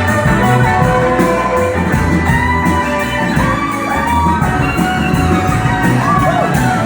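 Country-style music with guitar over a steady bass line, with some notes bending in pitch.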